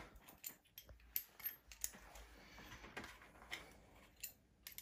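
Small steel screws clicking faintly and irregularly against a cycloidal drive's steel flange as they are set into its bolt holes, a few light metallic ticks a second.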